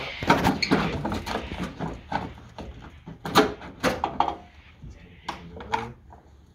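Hand tools knocking and clanking against metal car parts in an irregular run of sharp knocks, with indistinct voices between them.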